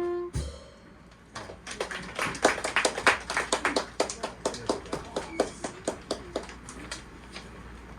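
The band's final held note cuts off just after the start, then a small audience applauds: separate claps that build for a couple of seconds and thin out by about seven seconds in.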